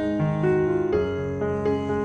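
Background music: gentle piano melody with sustained notes changing every half second or so.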